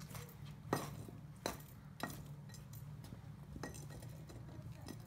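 Sharp metallic clinks and knocks from butchering tools working on a pig carcass, about five of them spaced a second or so apart, over a steady low hum.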